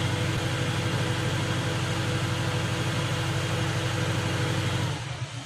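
An engine running steadily at constant speed, which drops away abruptly near the end.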